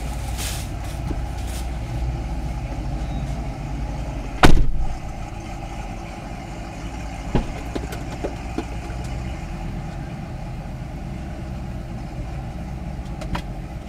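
Car engine idling with a low steady rumble, heard from inside a stopped car's cabin. A single loud knock comes about four and a half seconds in, with a few faint ticks a few seconds later.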